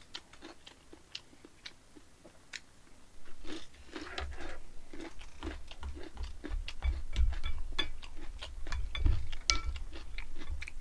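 Close-up chewing of crunchy kkakdugi, cubed radish kimchi, with sharp crunches and mouth clicks, sparse at first and denser from about four seconds in. A spoon clinks and scrapes in the bowls during the second half.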